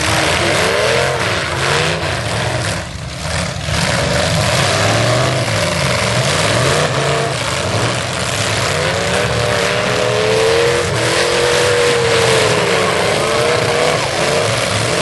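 Several stock demolition derby cars' engines revving hard, their pitch rising and falling over and over as the cars push and ram one another.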